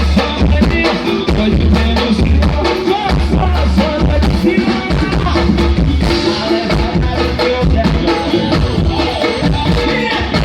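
A live gospel swingueira band playing an upbeat groove in a sound check: drum kit, bass, keyboards and hand percussion. The heavy bass line drops back about six seconds in while the drums and percussion carry on.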